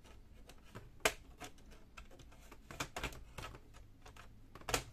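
Irregular sharp plastic clicks and snaps as the Lenovo G50-30 laptop's plastic case is pried apart with a plastic opening tool, its clips letting go; the loudest snaps come about a second in and near the end.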